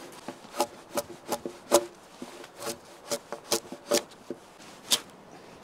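Drawknife pulled in short strokes along a wooden log, scraping off bark and smoothing the wood, about ten strokes at roughly two a second.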